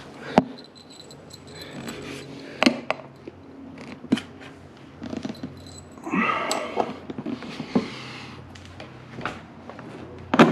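Hand tools and metal parts clicking and knocking at irregular intervals as a mounting bolt is worked in to secure a motorcycle's rear auxiliary tank, with a rough rasping stretch about six seconds in.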